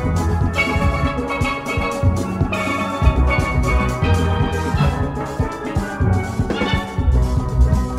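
Steel orchestra music: massed steelpans playing a melody with chords over a steady beat of drums and percussion.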